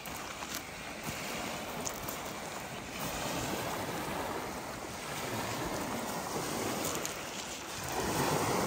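Lake Superior waves washing onto the shore, a steady rush that swells about three seconds in and again near the end.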